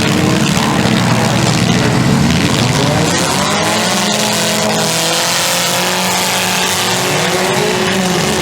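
Several demolition derby cars' engines running hard around a figure-8 track, their pitch rising and falling as they rev and back off.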